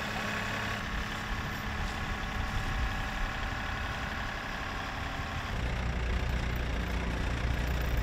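John Deere 2038R compact tractor's three-cylinder diesel engine running while its grapple carries a tree. About five and a half seconds in, a deeper, louder diesel engine idling takes over, the Case 580 backhoe's.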